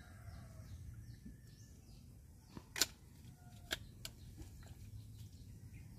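Quiet rural outdoor ambience: faint short bird chirps over a steady low rumble, with a few sharp clicks around three and four seconds in, the first the loudest.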